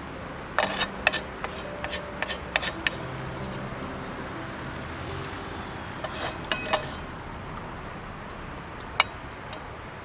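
Metal spoon clinking and scraping against metal cookware: a quick run of light clinks in the first few seconds, a few more with a short ring about six seconds in, and one sharp clink near the end.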